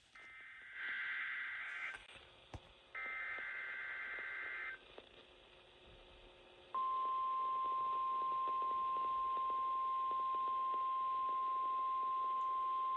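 NOAA Weather Radio EAS weekly test signals: two screechy SAME digital header bursts of about a second and a half each, then, about seven seconds in, the steady single-pitch 1050 Hz warning alarm tone starts and holds.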